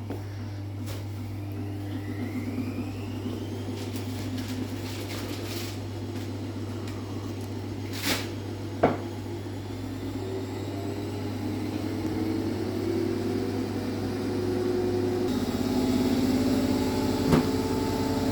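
AEG Lavamat washing machine running in the last minute of its programme, its drum turning its final spin revolutions with the drain pump running, a steady hum that grows louder over the last few seconds. A couple of sharp clicks come about eight and nine seconds in.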